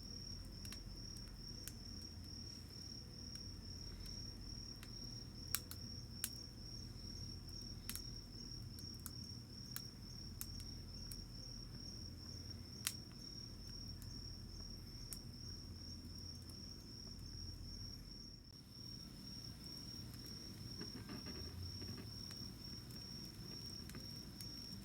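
An insect trills without a break at one high, even pitch. A wood fire crackles with a few sharp pops, the loudest about 5, 6, 8 and 13 seconds in.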